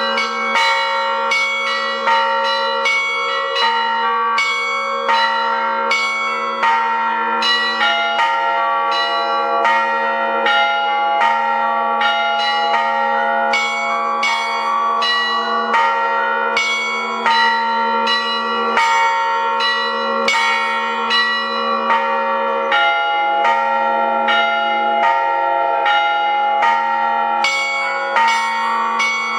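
Russian Orthodox bell ringing (zvon) on thin-walled bells together with thick bila (struck plates), played by hand. It is a rapid, unbroken run of strikes, several a second, whose ringing tones overlap over a steady low hum.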